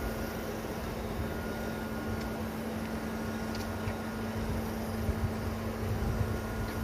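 A small camera drone's propellers humming steadily overhead, one even pitch, with a few footsteps on the path near the end.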